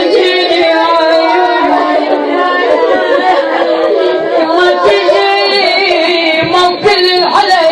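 A woman chanting a na'i, an Iraqi Shia mourning lament, in a sung, pitch-bending voice that carries on without a break.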